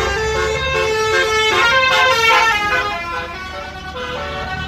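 A tour bus's 'basuri' telolet musical horn playing a melody of quick stepped notes, loudest about two seconds in, over the low rumble of road traffic.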